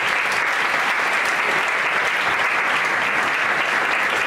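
Audience applauding steadily in a large hall, many hands clapping at once.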